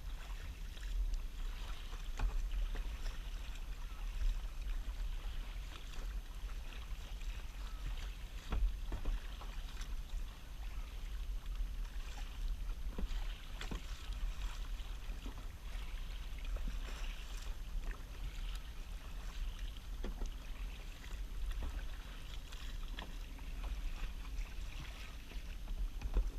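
Kayak paddling: paddle strokes splash the water in recurring washes, with scattered short clicks over a steady low rumble.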